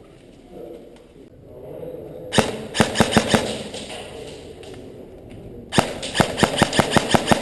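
Airsoft gun firing two quick strings of shots, about six a second: a short string of about six shots, then after a pause a longer string of about ten near the end.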